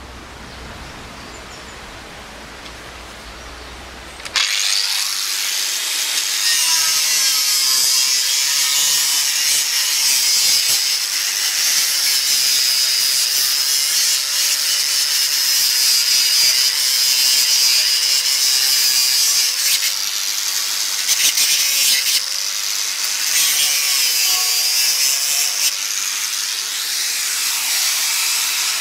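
Angle grinder with a cutting disc slicing through a hollow clay brick: a high whine over a gritty grinding rasp, starting suddenly about four seconds in and running on, easing off briefly a couple of times as the disc works along the cut.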